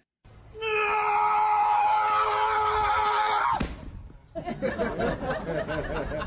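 Domestic cat's drawn-out warning yowl at a monitor lizard: one long cry held on a steady pitch for about three seconds that breaks off with a sudden drop. It then goes on in a wavering, broken cry near the end.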